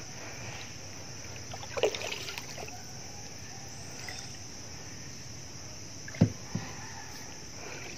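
A small boat being paddled through shallow creek water: a few splashy strokes about two seconds in and two sharp knocks just after six seconds, over a steady high-pitched background.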